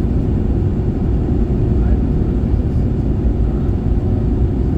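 Steady low rumble of an Airbus A321-111's CFM56 engines and airflow heard inside the passenger cabin in flight.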